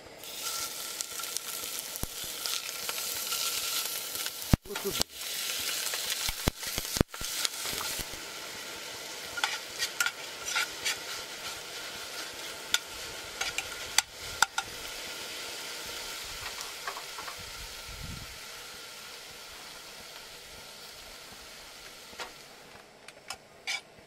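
Meat sizzling loudly as it goes into a hot stainless steel frying pan on a gas camp stove, then frying while a utensil stirs it, with sharp clicks and scrapes against the pan. The sizzle gradually dies down toward the end.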